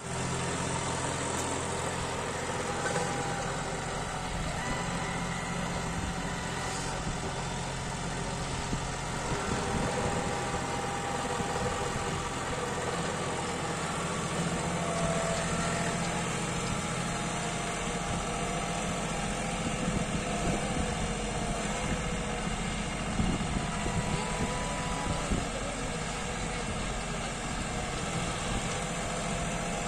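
John Deere 5210 tractor's three-cylinder diesel engine running steadily under load, pulling a rotary tiller through dry soil.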